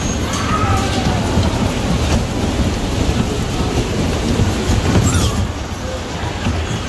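Steady low rumble of a bumper car running across the rink floor, with a couple of brief knocks about two and five seconds in.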